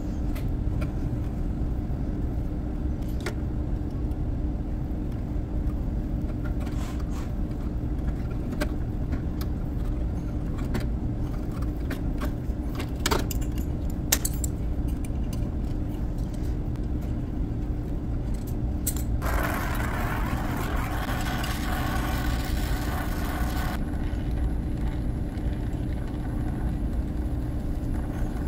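Metal clicks and clinks as a pinch-off tool is worked onto a copper refrigerant suction line, over a steady low hum. A hiss lasting about four seconds comes about two thirds of the way through.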